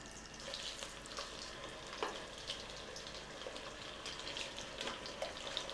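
Veal chops sizzling in hot butter and oil in a cast-iron casserole, a steady frying hiss with irregular small crackles.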